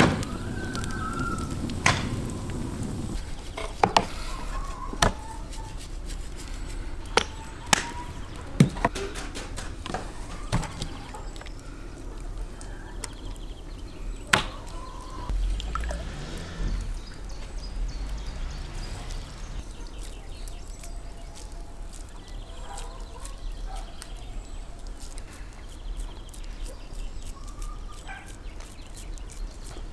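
Scattered sharp knocks and clicks of meat being worked by hand on a wooden cutting board and onto metal skewers, over a steady outdoor background.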